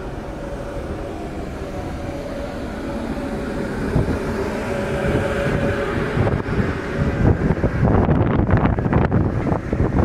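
Steady drone of a passenger ferry's engines and machinery heard on deck, with a faint steady hum. From about seven seconds, wind buffets the microphone in gusts.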